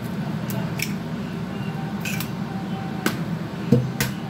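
Raw egg being cracked by gloved hands and its shell pulled apart over a plate: a few sharp little clicks of shell and a louder knock near the end, over a steady low hum.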